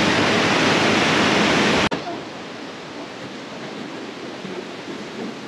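Fast-flowing, flood-swollen river rushing, a loud steady roar of water. It cuts off abruptly about two seconds in, leaving a much quieter rushing hiss.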